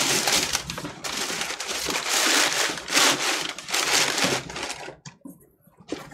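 Brown packing paper being crumpled and crinkled by hand in a continuous rustle that dies down to a few faint rustles about five seconds in.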